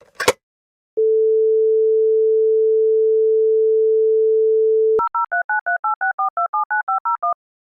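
Telephone handset picked up with a short clatter, then the French landline dial tone, a single steady 440 Hz tone lasting about four seconds. It cuts off and a fast run of DTMF keypad tone pairs follows as the number is dialled.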